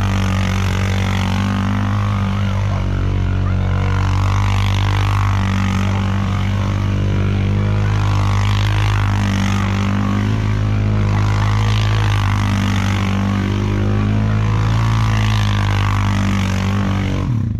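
Four-wheeler (ATV) engine running at a fairly steady pitch as it drives in tight circles through snow, swelling every few seconds as it comes around.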